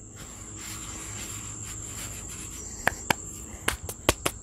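Hands rubbing and spreading flour across a wooden cutting board, a soft brushing hiss, over a steady high trill of insects. From about three seconds in come a handful of sharp clicks and taps.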